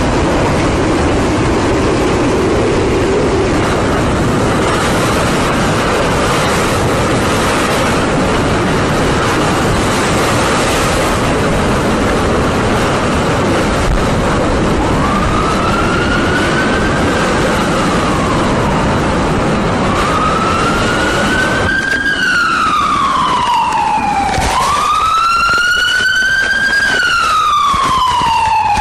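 A loud, steady rushing noise through the first half. From about halfway a wailing siren joins it, rising and falling in pitch in slow cycles of about four to five seconds and growing clearer toward the end.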